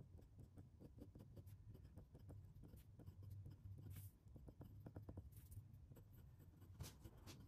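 Glass dip pen nib scratching faintly on paper in short strokes as lines, cross-hatching and letters are written.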